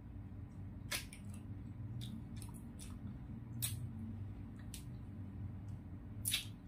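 Close-miked mouth sounds of eating spicy chicken feet: sharp wet smacks and sucking clicks, several of them at irregular intervals, over a low steady hum.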